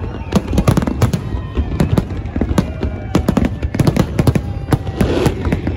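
Aerial firework shells bursting in a dense barrage: sharp bangs several times a second, overlapping one another with crackle between them.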